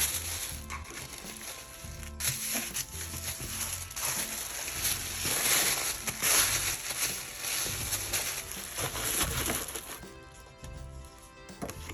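Packaging being handled, crinkling and rustling, loudest in the middle and dying away near the end, over background music.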